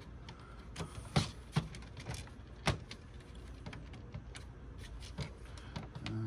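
Small parts of a dismantled DVD player and hand tools clicking and tapping as they are handled on a tabletop, in irregular light clicks, with sharper clacks about a second in and near three seconds.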